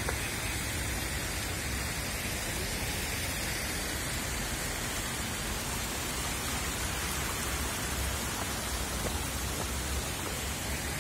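Steady rushing hiss over an uneven low rumble.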